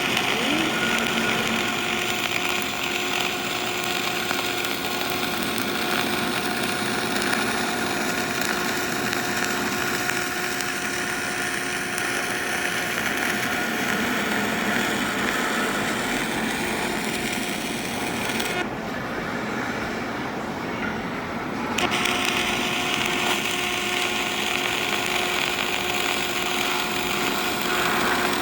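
A power tool running steadily with a constant whine and hiss; the hiss drops away for about three seconds past the middle, then returns.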